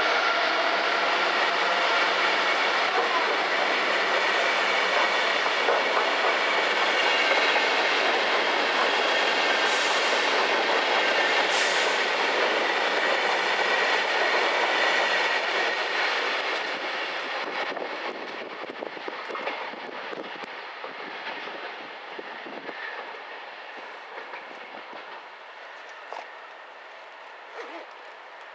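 A locomotive-hauled passenger train, a DB class 101 electric locomotive with its coaches, leaving the station. The running noise is loud and steady for about sixteen seconds, then fades away as the train draws off.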